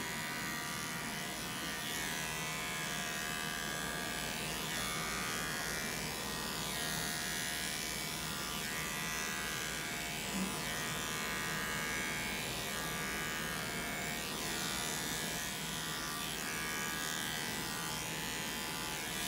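Wahl Arco cordless animal clipper running with a steady buzz, fitted with a #2 (3/8-inch) guard comb over its 5-in-1 blade set to 40, clipping through a poodle's coat.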